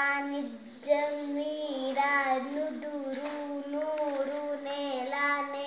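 Children's voices chanting together to a repeating sing-song tune with long held notes, as in rote recitation of lessons from their charts.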